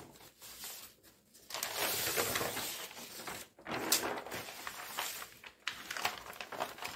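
Paper pattern sheets rustling and sliding as they are lifted, turned over and laid flat on a table, in two stretches starting about a second and a half in and about four seconds in.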